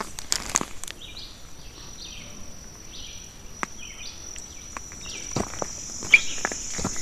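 Insects keep up a steady high-pitched drone while a bird sings short notes repeated about once a second. Footsteps on the dirt trail add scattered soft knocks, most of them in the second half.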